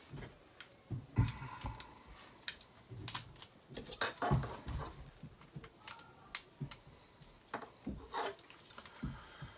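Irregular small plastic clicks, taps and knocks as a hand-held plastic Transformers figure, the Lord Zarak headmaster from Scorponok, is twisted and its parts moved during transformation. The sharpest knocks come about a second and about four seconds in.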